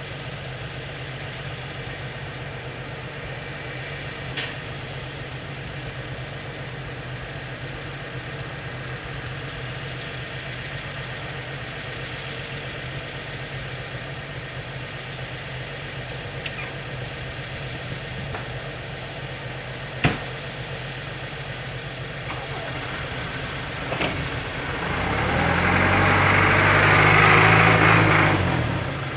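A diesel engine idles steadily, with a few sharp clicks. Near the end a CAT 416 backhoe loader's diesel engine revs up loudly for about four seconds as it drives off, its pitch shifting, then drops back.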